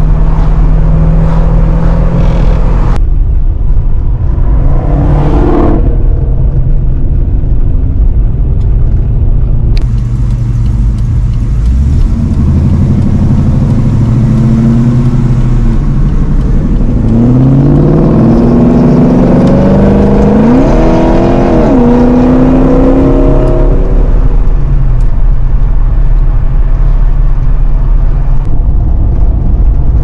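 A V8 car engine running at steady revs, with a few abrupt cuts where clips are joined. Past the middle it pulls hard, its pitch climbing, dropping at a gear change and climbing again, before it settles back to a steady run.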